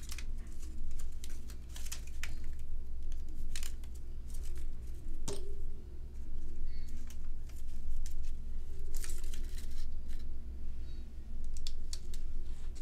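A roll of glue dots being unrolled and a dot peeled off its backing strip: crackling and crinkling of the release tape, with scattered small clicks and taps of paper and a wooden pick on the table.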